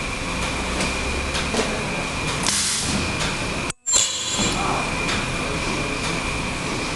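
Ultrasonic edge sealing and cutting machine running with a steady high whine over a mechanical noise bed. About two and a half seconds in there is a short hiss, then after a brief cut-out a loud, high-pitched burst of about half a second as the ultrasonic horn comes down and seals and cuts the fabric edge.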